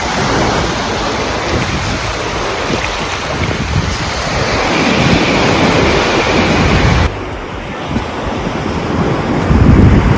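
Ocean surf breaking and washing on the beach, with wind buffeting the microphone. The high hiss drops away abruptly about seven seconds in.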